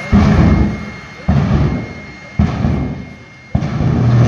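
Jet engine of a jet-powered semi truck letting off four loud booms about a second apart, each dying away before the next.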